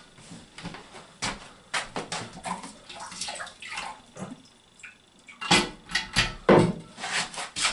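Knocks and scrapes of hands working fittings loose inside a drained ceramic toilet cistern, with some splashing of the water left in it. The loudest knocks come near the end.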